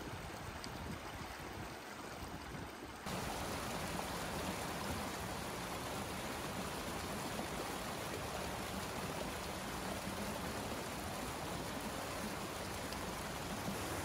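Steady rushing noise, which jumps abruptly louder about three seconds in and then holds steady.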